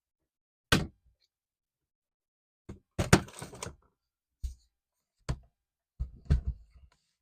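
Irregular sharp clicks and knocks from the hard casing and parts of an HP Victus 15 laptop being handled during disassembly. There are single taps and two quick clusters, one about three seconds in and one near the end.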